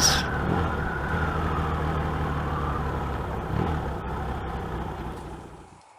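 Motorcycle engine running steadily under way, heard from a helmet camera with wind noise, fading out near the end.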